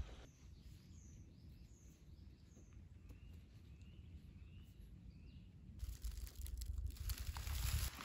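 Small birds chirping in the forest: a run of short high calls, then a few lower arched notes, over a faint low wind rumble. About six seconds in, a louder rustling and crunching of dry leaves underfoot comes in, with a stronger low rumble.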